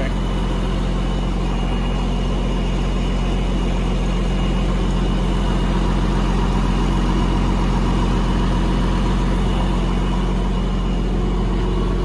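Farm tractor engine idling steadily, a constant low hum with a faint high whine above it.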